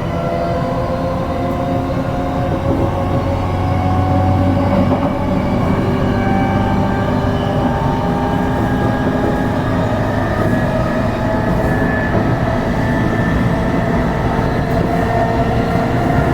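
JR East E233-series electric train running, heard from inside the car: a steady rumble of wheels on rails with thin whining tones from the traction equipment, some rising slowly in pitch as the train gathers speed.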